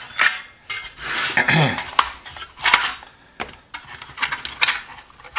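Vintage Indestro steel sockets clinking and clattering against each other as they are taken out of the set and set down, a series of separate sharp metallic clicks and knocks.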